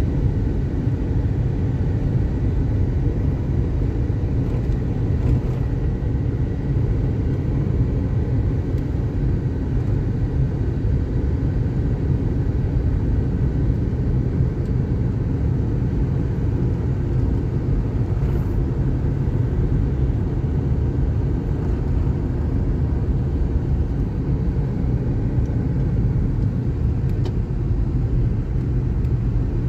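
Car driving steadily along a paved road: a constant low rumble of engine and tyre noise.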